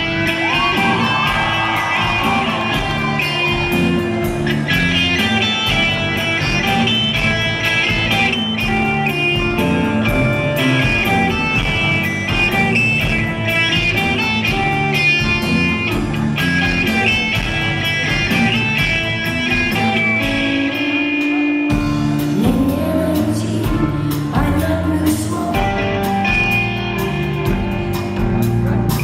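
Rock band playing a song live: electric guitar over bass and drums, with the bass dropping out briefly about three-quarters of the way through.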